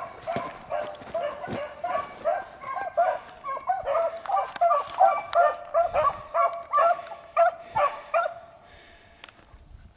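A pack of beagles baying while running a rabbit's track, a quick run of short bawls at about three a second. The bawls grow louder toward the middle and stop about eight seconds in.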